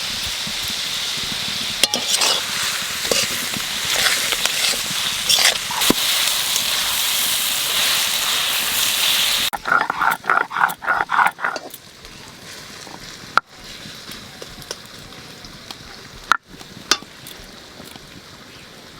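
Onions frying in hot oil in a pan, a steady loud sizzle with stirring scrapes, which stops sharply about nine and a half seconds in. Right after, a short run of quick animal calls over a quieter background, with a few sharp clicks near the end.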